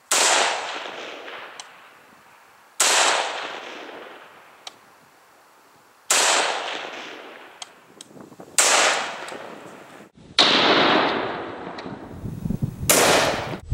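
5.56×45 NATO rifle with a 16-inch barrel firing M855 62-grain rounds: six single shots a few seconds apart, each followed by a long echo fading away.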